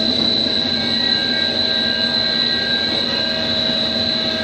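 Pet-treat extrusion production-line machinery running steadily: a continuous mechanical drone with a steady high whine on top.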